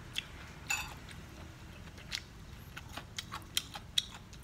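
Chewing crisp-fried battered anchovy fritters close to the microphone: an irregular scatter of small sharp crunches and clicks.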